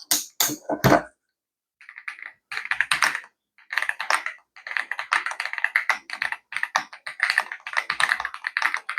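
Typing on an AJAZZ AKS068 Alice-layout mechanical keyboard: a few separate key strokes, a brief pause, then a fast, continuous run of keystrokes from about two seconds in.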